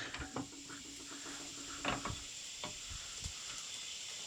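Wood lathe tailstock being brought up to the workpiece: a few light, separate clunks and scrapes of metal and wood handling, with a faint steady hum that stops about two seconds in.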